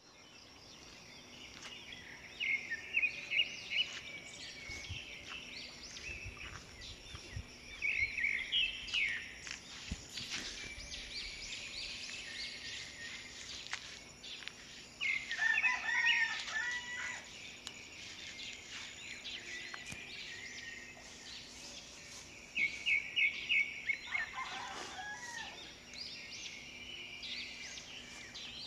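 Rooster crowing, once about halfway through and again near the end, among bursts of rapid repeated bird calls.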